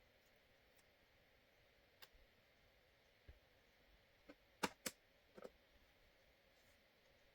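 A few light clicks and taps, about six, the loudest a quick pair just past halfway, over faint room hiss.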